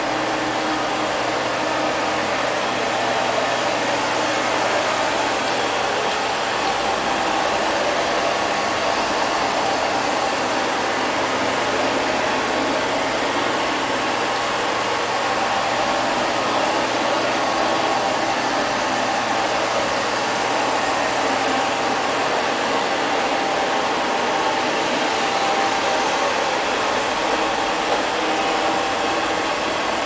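LL-306 (X500) robot vacuum cleaner running: a steady whir from its suction fan and brushes.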